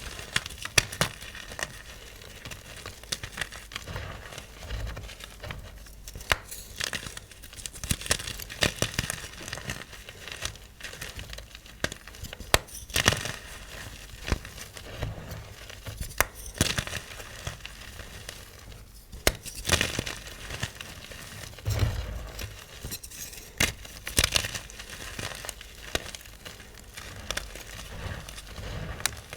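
Small blocks of yellow-dyed gym chalk (magnesium carbonate) being crushed, giving an irregular run of dry crunches and sharp crackles.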